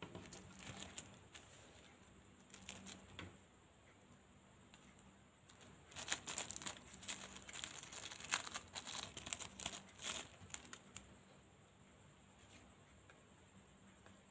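Thin red paper wrapper of a sticker packet being torn open and crumpled by hand. A couple of short crinkles come first, then several seconds of dense crinkling and tearing begin about six seconds in.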